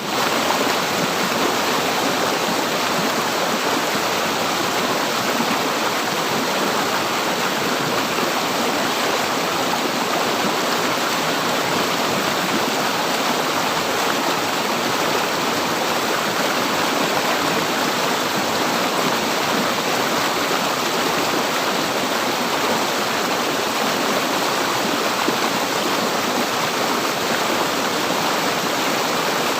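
River water flowing in a steady, even rush, with no let-up.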